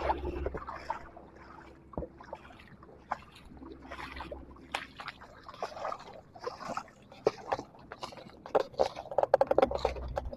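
Water sloshing and splashing in irregular bursts, with scattered knocks, as from wading through deep river water.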